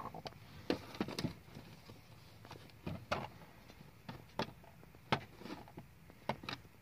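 Broody hen shifting on a straw nest as she settles her eggs under her, with irregular soft rustles and light clicks.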